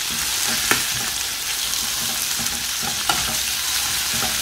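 Thin turkey escalopes sizzling as they fry in butter in a nonstick pan, with a fork turning them over. The fork clicks lightly against the pan about a second in and again near three seconds.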